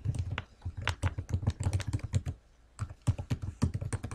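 Typing on a computer keyboard: a quick run of key clicks, a short pause about halfway through, then more typing.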